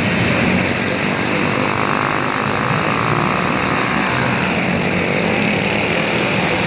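Racing karts' Briggs & Stratton Animal single-cylinder engines running flat out around a dirt track, a steady loud buzz with engine notes rising and falling as karts pass.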